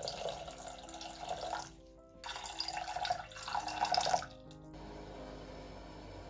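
Water poured in a thin stream into a stainless steel saucepan of sugar, splashing in two pours of about two seconds each with a short break between, ending about four seconds in. Soft background music with steady notes plays throughout.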